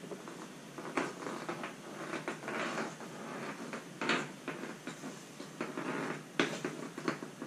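Rummaging by hand among small parts and objects: sharp knocks about one, four and six and a half seconds in, with smaller clicks and rustling between.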